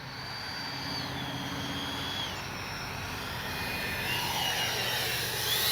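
Whine of an RC jet's 80 mm, 12-blade electric ducted fan on a low pass. Its pitch steps down over the first couple of seconds, then rises again near the end.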